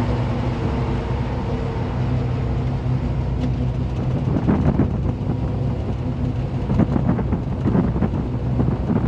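A 1971 Ford F100 pickup driving along, heard from inside the cab: a steady engine hum over road and wind noise, with rougher, uneven patches about halfway through and near the end.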